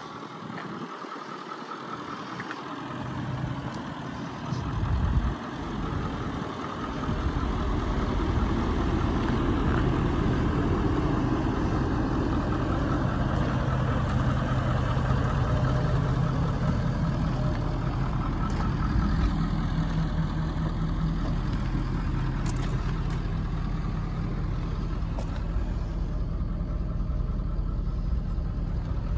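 Ford F-350 truck engine idling steadily. A low hum comes in and grows louder a few seconds in, then holds.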